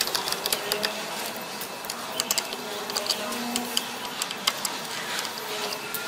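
Irregular light clicks and taps as a screwdriver and hands handle a washing machine's control board in its plastic housing.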